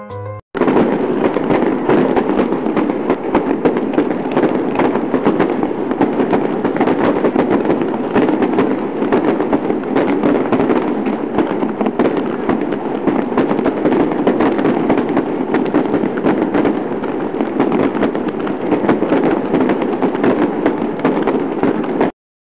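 Battery-powered toy car running along a plastic track: a loud, dense rattling clatter of its small motor, gears and wheels on the plastic, which cuts off suddenly near the end.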